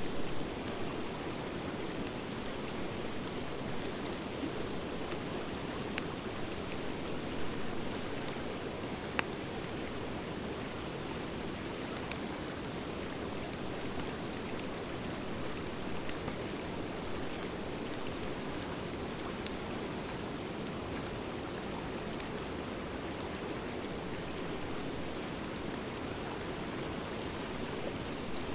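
Wood fire of driftwood and dry hardwood logs burning, a steady hiss of flames with scattered sharp crackles and pops a few seconds apart.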